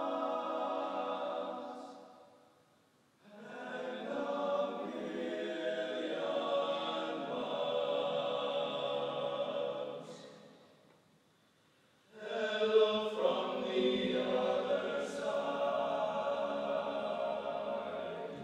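Men's a cappella choir singing sustained chords in three phrases, each fading away into a short silence before the next begins.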